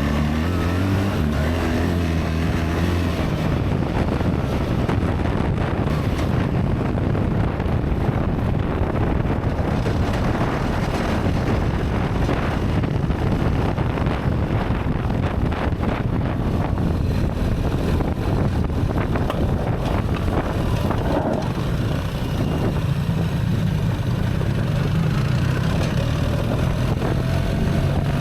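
BMW R 1300 GS Adventure's boxer-twin engine running while riding on gravel, with wind buffeting the microphone. The engine pitch climbs in the first few seconds, and the automated ASA gearbox shifts on its own as the bike rides.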